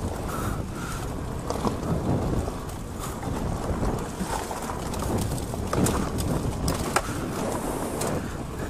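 Wind buffeting the microphone of a camera riding on an electric e-bike, over a steady low rumble of tyres on a rough dirt trail. Sharp rattles and knocks from bumps come in a cluster around six to seven seconds in.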